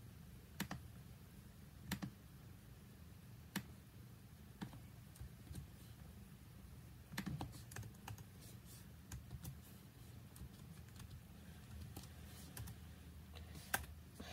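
Grey tabby cat purring softly as a low, steady rumble while being scratched under the chin, with scattered light clicks at irregular intervals.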